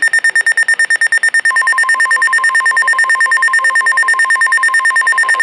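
Weather alert radio's alarm beeping rapidly, a high buzzy tone about ten beeps a second, sounding for an incoming warning. About a second and a half in, the NOAA Weather Radio 1050 Hz warning alarm tone joins underneath the beeping.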